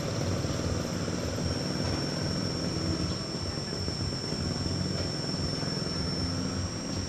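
Radio-controlled CAT excavator model running its electric drive with a steady mechanical whine as the boom, arm and bucket swing and curl into the dirt. A thin high tone joins about a second and a half in.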